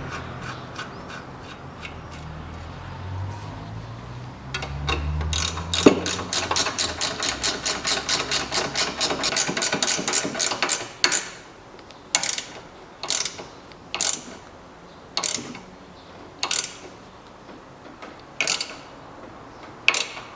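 Hand ratchet wrench tightening the nut on a new steering tie rod end: a fast, even run of ratchet clicks for about six seconds, then a string of short single strokes, each a quick burst of clicks, about a second apart.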